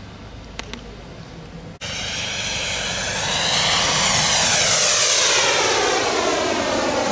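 Radio-controlled model Me 262 jet making a low, fast pass: its engine whine swells to its loudest about four to five seconds in, then drops in pitch as it goes by. Before that, about two seconds in, a fainter, more distant engine sound cuts off suddenly.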